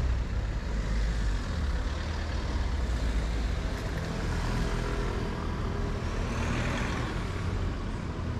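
Street traffic: a van's low engine hum close by at the start, then cars driving past with steady tyre and engine noise, swelling as one passes about three-quarters of the way through.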